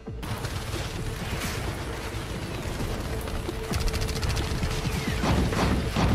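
Battle sound effects: rapid volleys of gunfire with crashes and impacts, starting abruptly and growing louder about two thirds of the way through, over a steady low tone.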